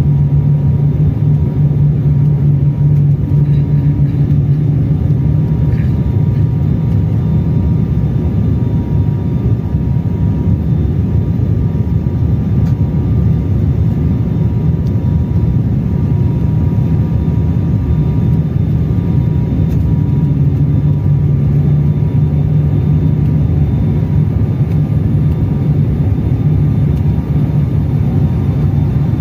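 Cabin noise of an ATR turboprop airliner on final approach to landing: the engines and propellers make a steady, loud drone with a strong low hum and a faint thin whine above it.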